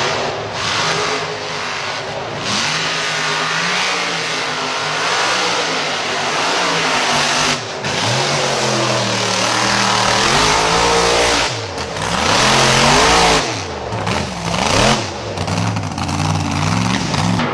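UTV engine revving, its pitch rising and falling again and again, with a few abrupt breaks.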